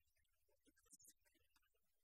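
Near silence: faint background noise only.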